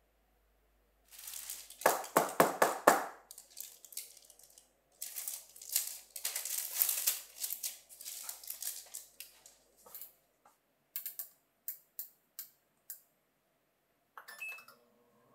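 Kitchen handling sounds. Brownie batter is scraped from a glass mixing bowl into a parchment-lined baking pan in a few sharp strokes, then parchment paper crinkles as the pan is handled. Near the end come a few clicks as an oven's control dial is turned.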